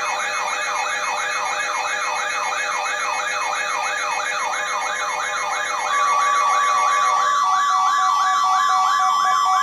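Emergency alert alarms from weather-alert receivers sounding together: a rapid siren-like warble sweeping up and down about three times a second, joined about six seconds in by a loud steady high alarm tone.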